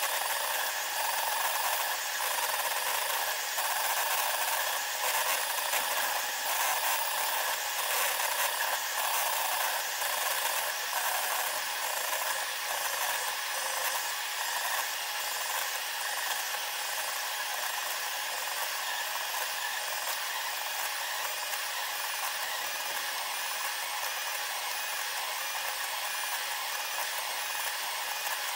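SeeMeCNC Orion delta 3D printer running, its stepper motors and fan sped up tenfold into a steady, dense high whir with fast fluttering chatter. It is a little louder and busier in the first half.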